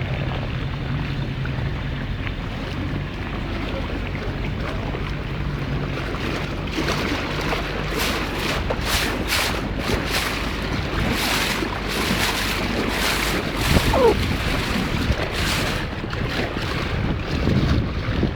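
Wind buffeting the microphone over open water near a boat, with water noise and irregular gusty surges getting stronger from about a third of the way in.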